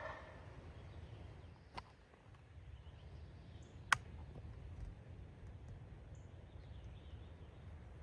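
Quiet woodland: a low rumble of wind, a few faint bird chirps, and two sharp clicks, a smaller one about two seconds in and a louder one about four seconds in.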